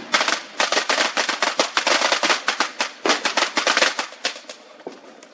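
Fireworks going off in a rapid string of sharp cracks, many a second, thinning out and dying away about four seconds in, leaving a fainter hiss.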